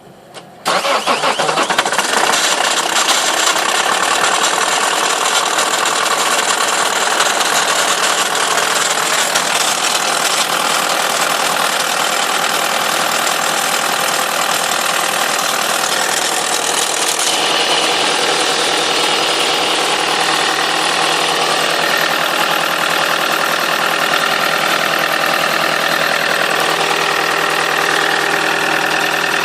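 Toyota Corolla E12 2.0 D-4D four-cylinder common-rail turbodiesel started from cold silence: a click, then the engine catches almost at once, under a second in, and runs on loudly and steadily at idle. Its start-up carries a strange noise that the owner cannot explain.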